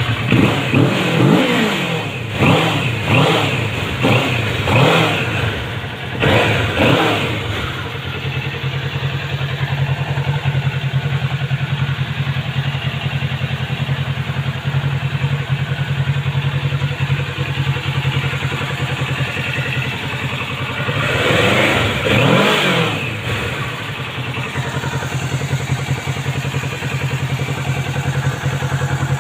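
Kawasaki Ninja 650's parallel-twin engine on its stock exhaust. It is revved in a series of quick blips over the first several seconds, then settles to a steady idle, with one more rev about three-quarters of the way through.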